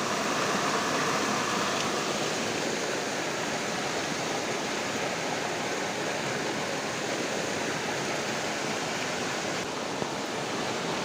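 Heavy rain falling and floodwater rushing, a steady even noise.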